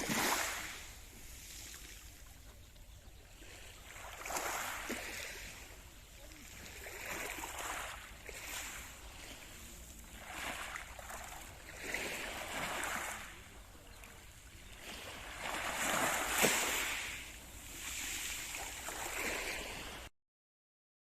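Small waves of a calm Mediterranean sea washing in, a soft rush swelling and fading every few seconds. The sound cuts off abruptly near the end.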